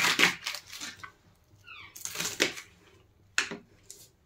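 Knife chopping a bunch of water spinach (kalmi shak) stems on a plastic cutting board: a few crisp crunching strokes, with gaps between them. A faint, short cry sliding down in pitch comes between the strokes, about one and a half seconds in.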